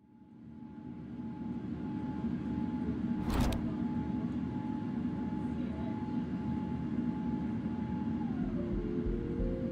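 Airliner cabin noise fading in: a steady low jet-engine rumble and air rush with a faint steady whine. There is one sharp click about three and a half seconds in, and music comes in near the end.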